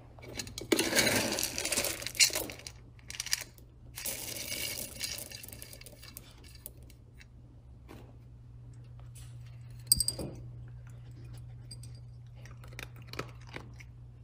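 Dry dog kibble rattling against a clear plastic scoop and bin as the scoop digs in and tips out, in two rattling bursts of a second or two each, about one second and four seconds in. A single sharp clink comes about ten seconds in, over a low steady hum.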